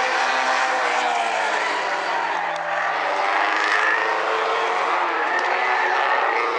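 Several small compact race cars running at full throttle, their engines sounding together at overlapping, shifting pitches.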